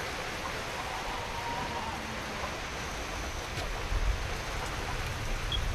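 Steady rain falling as an even hiss, with a short low rumble about four seconds in.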